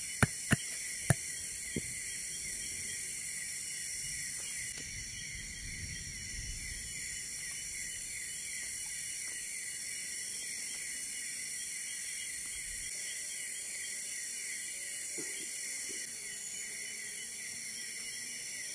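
Steady chorus of night insects trilling in tropical forest, with a few sharp knocks in the first two seconds.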